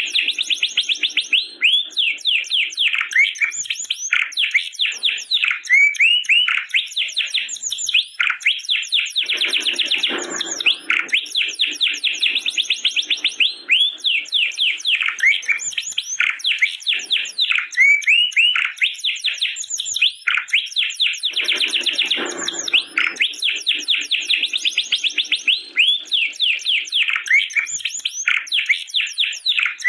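Domestic canary singing a continuous song of fast trills made of rapidly repeated high, sweeping notes, twice dropping into a lower passage.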